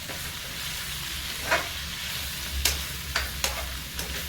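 Vegetable curry frying in oil in a pan with a steady sizzle as it is stirred. The stirring utensil knocks and scrapes against the pan about five times in the second half.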